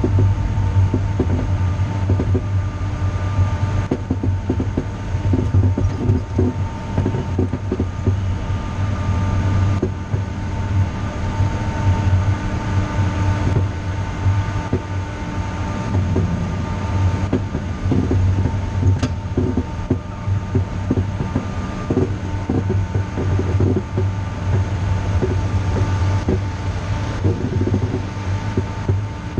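Steady low rumble of a small vehicle rolling over pavement, with a faint steady whine on top.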